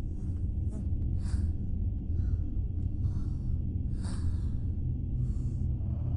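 A steady low rumbling drone under short breathy sounds that come every second or so, from the soundtrack of a Mugler advertisement.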